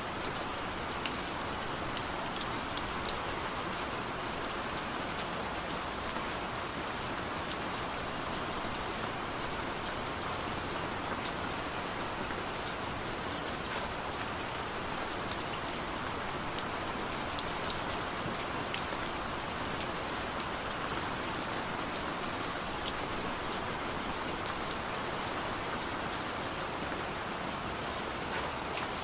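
Steady rainfall, an even hiss with many sharp drop ticks scattered through it.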